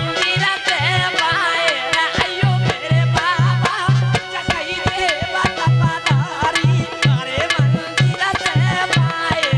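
A male voice singing a Hindi devotional bhajan over a harmonium's held notes, with a dholak keeping a steady rhythm of deep bass strokes and the metal jingles of a chimta clicking along.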